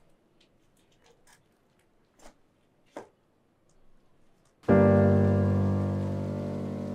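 Near silence with a few faint clicks, then about four and a half seconds in a loud piano-like keyboard chord is struck and held, slowly dying away.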